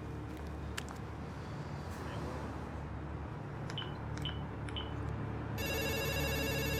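Door entry intercom panel: three short keypad beeps about half a second apart, then a buzzy call tone starts ringing near the end as the flat is called. A low steady hum lies underneath.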